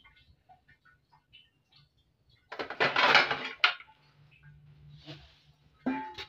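Kitchenware being handled: a few light clicks, then a loud clattering rattle lasting about a second, starting about two and a half seconds in.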